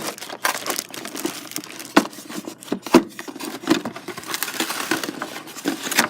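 Packaging rustling and crinkling as a keyboard cable is tugged out of its box, with a few sharp knocks, the clearest about two and three seconds in.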